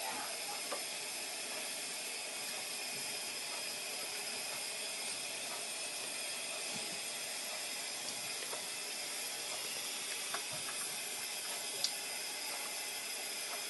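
Tap water running with a steady hiss into a sink through a multi-balloon water balloon filler, with a few faint ticks.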